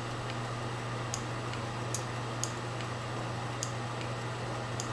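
Homemade rotary-displacer Stirling engine running slowly and weakly, its moving parts giving light, irregularly spaced ticks over a steady low hum.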